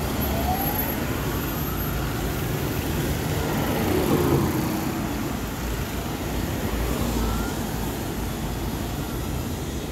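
Rapid response vehicle's siren wailing in slow rising and falling sweeps, faint and fading as the vehicle drives away, over steady road traffic. A passing car is loudest about four seconds in.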